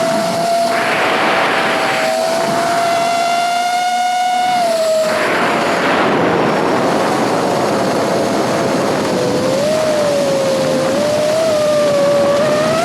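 FPV quadcopter's motors and propellers whining steadily, the pitch rising and falling as the throttle changes, with gusts of wind rush.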